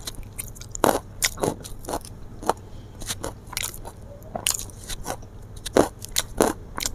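A person eating at close range: irregular crunching, chewing and sharp mouth clicks, a few louder bites standing out.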